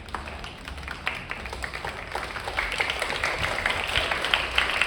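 A group clapping in applause, starting as scattered claps and growing into denser applause about two and a half seconds in.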